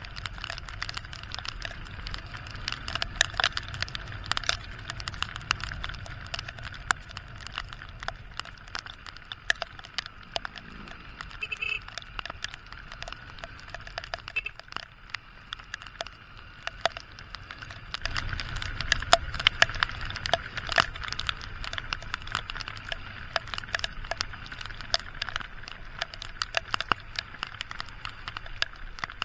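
Raindrops striking the camera and its microphone in many irregular sharp taps while riding a motorcycle through rain. Under them runs a steady low rumble of engine and wind, with the hiss of tyres on the wet road.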